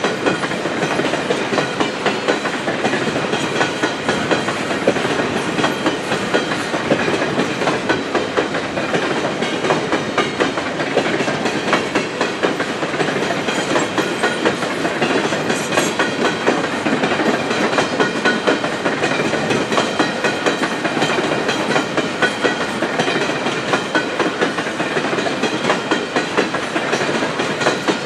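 Empty open-top steel coal cars of a long freight train rolling past, their wheels clicking and clattering steadily on the rails.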